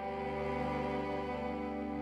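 Slow instrumental background music of long held notes, string-like in tone; a deep low note comes in at the beginning.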